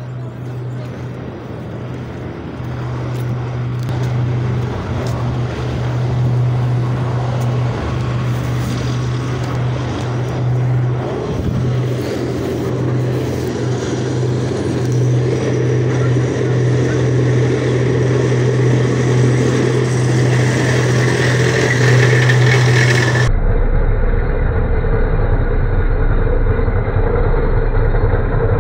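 Heavy vehicle engine running with a steady low hum that grows louder. About four-fifths of the way through it changes abruptly to a deeper, duller rumble from a tracked tank's engine as the tank drives past.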